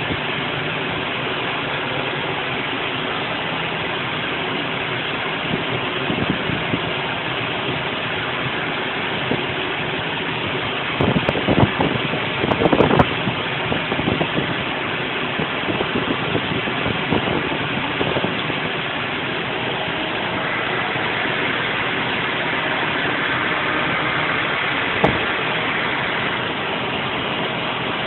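An engine running steadily, with a spell of louder clattering about eleven to thirteen seconds in and a single sharp knock near the end.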